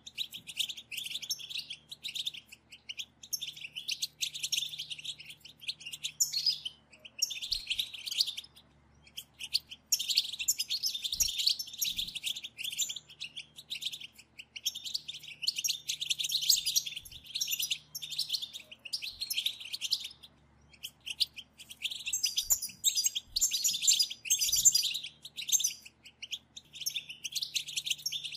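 Several European goldfinches chattering together in the rapid, high-pitched 'batbata' twitter of female goldfinches. It comes in bouts of a second or two with short breaks between them.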